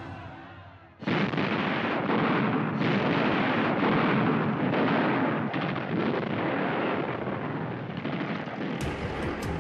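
Battle sounds: dense gunfire with heavy blasts, starting abruptly about a second in.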